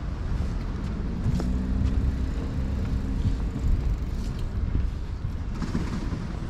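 Passing road traffic: a steady low rumble, with a vehicle's engine hum rising out of it for a couple of seconds about a second in.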